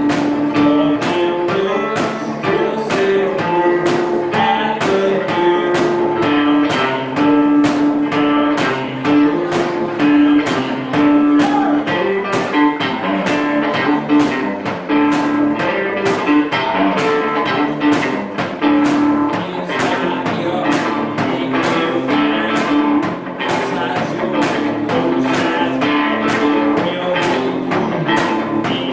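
A song played on strummed guitar in a steady, even rhythm, with a held melody line stepping between notes over it.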